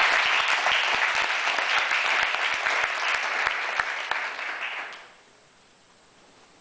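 Audience applauding, dense clapping that dies away about five seconds in.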